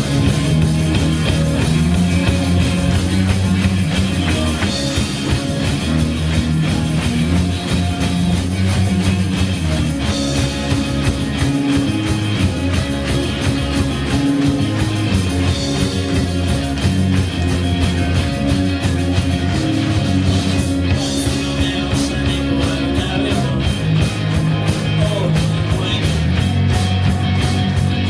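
Rock band playing live: electric guitars, bass guitar and drum kit together at full volume, heard from the crowd in a small club.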